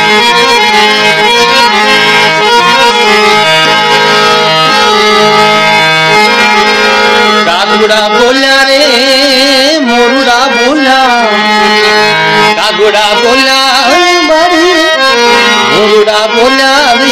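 Instrumental interlude of Rajasthani folk music: a harmonium plays over a steady drone, and about halfway through a melody line that slides and wavers in pitch joins in.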